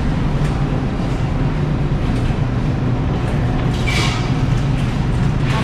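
Shopping cart rolling over a tile floor: a steady low rumble and rattle of the wheels.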